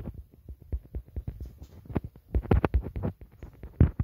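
Handling noise from a phone being held and moved: irregular soft thumps and rubbing against the microphone.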